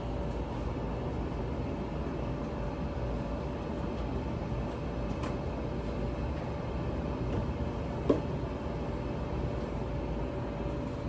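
Steady hum and hiss of a running kitchen appliance, with a faint constant tone, and a small click about eight seconds in.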